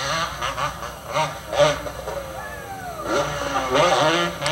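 Motocross bike engine revving as it climbs, its pitch rising and falling, mixed with indistinct voices.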